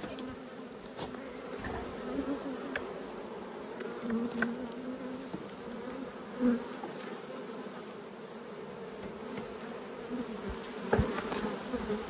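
Honey bees buzzing steadily around the hive, with a few light knocks scattered through, the loudest about eleven seconds in.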